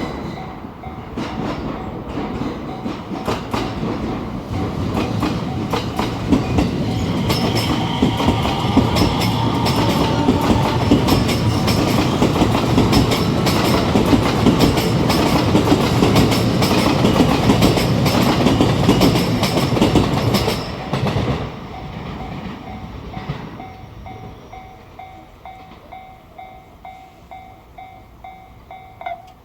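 A JR West 227 series electric train passes over a level crossing, its wheels clacking over the rail joints, building loud for about twenty seconds before it drops away sharply. A level-crossing warning bell is then heard ringing in an even beat of about two strokes a second until near the end.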